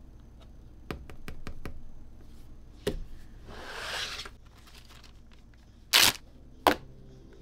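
Hands handling a plastic bottle on a cutting mat: light taps, a knock and a brief swish as it is moved. Then a plastic zip-lock bag is pulled open with two short, sharp, loud rips, the loudest sounds here.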